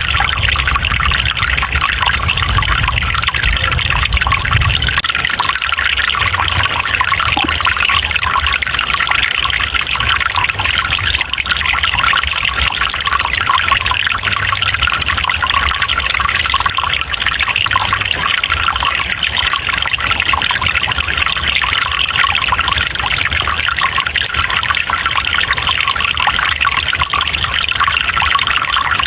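Water flowing steadily in a forest stream, an even trickling and splashing, with a low rumble underneath for the first five seconds or so.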